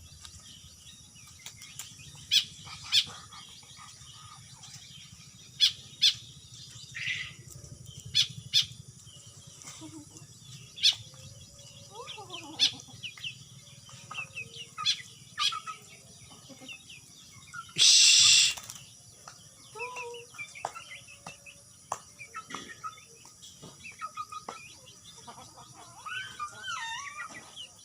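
A jalak (Asian starling) calling: a scattered series of short, sharp chirps and clicks, with twisting, warbling calls near the end. About eighteen seconds in there is a loud rush of noise lasting under a second.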